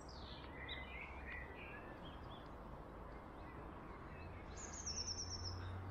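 Outdoor ambience with small birds chirping and calling, a rapid high trill near the end, over a steady low rumble.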